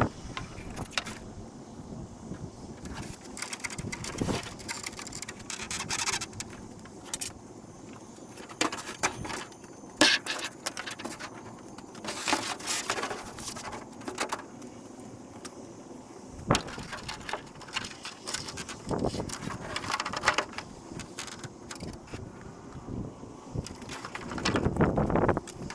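Irregular clicks, taps and short scrapes of small hard parts being handled and fitted by hand, busier near the end.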